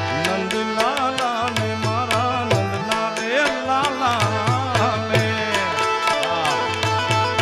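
Live Gujarati devotional folk music: tabla and dholak play a quick rhythm, and the bass drum's pitch swoops up and down. Harmonium chords are held underneath, and a wordless vocal line bends and ornaments over them through the middle.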